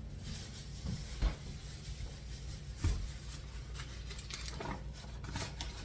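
Kitchen utensils being handled while flour is measured: light taps, clicks and scrapes, with two louder dull thumps about a second in and near three seconds, over a steady low hum.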